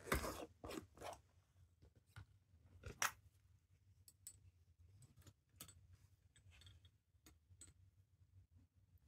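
Metal screw lid grinding as it is twisted off a small glass jar: a few short scraping turns in the first second, then a sharper knock about three seconds in. After that come light clicks and taps of steel tweezers against the glass and the watch parts soaking inside.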